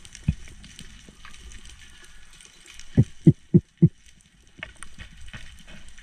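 Underwater ambience picked up by a camera housing: steady faint crackling, with a low thump just after the start and a quick run of four low thumps about three seconds in.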